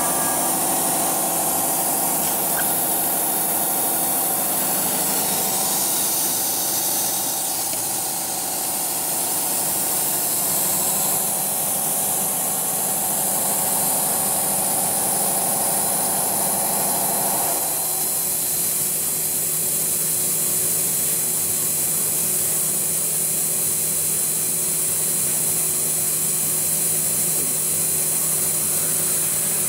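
CNC router (AccTek AKM1325C) running: a steady spindle whine over hiss, with a mechanical hum that changes about two-thirds of the way through as part of the middle-pitched sound drops away.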